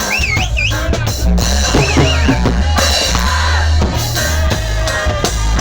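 Music with a heavy bass line and a drum-kit beat of kick and snare, with wavering melodic lines over it.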